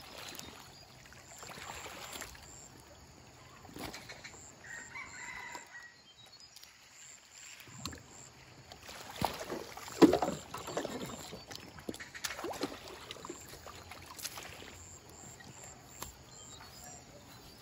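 A long bamboo pole being pushed into river water to move a raft, giving repeated splashing, swishing strokes; the loudest comes about ten seconds in. A short chicken call sounds about five seconds in.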